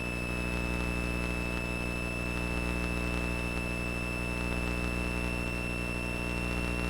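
Cessna 172 engine and propeller running steadily in flight, an even drone heard in the cabin, with a steady high-pitched whine over it.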